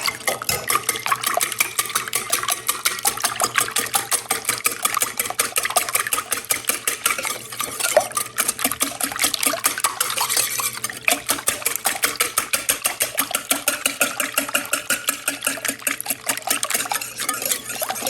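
Beating eggs and milk into a French toast custard in a mixing bowl by hand: a steady, rapid run of clicks, several a second, as the utensil strikes the bowl.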